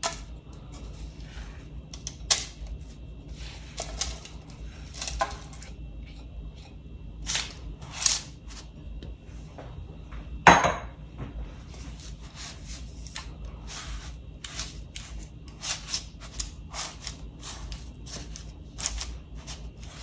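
Oreo-and-butter crumb base being spread and pressed into a springform pan: irregular scraping and light taps of a utensil against the pan, with one louder knock about ten seconds in.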